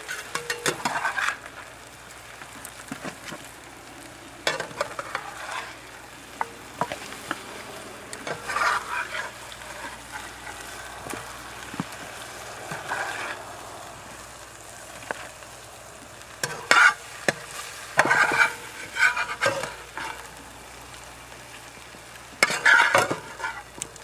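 Food sizzling in oil in a pan, with a utensil stirring and scraping against the pan in short bouts every few seconds.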